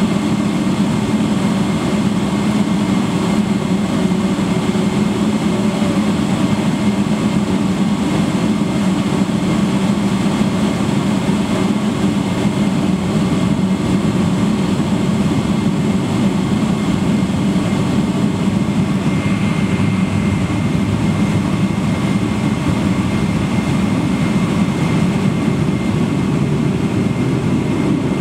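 Boeing 777-300ER's GE90-115B turbofan engines at idle thrust, heard from inside the cabin as a steady, even drone. A faint high whine joins in about two-thirds of the way through.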